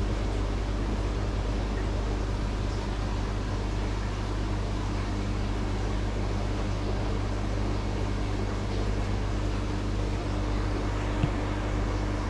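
Steady low hum with an even hiss from aquarium pumps and filters running in a fish shop, with one short knock about 11 seconds in.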